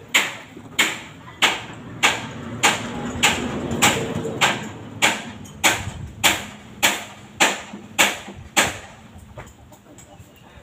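A steady series of sharp knocks, about three every two seconds, which stop for a moment near the end.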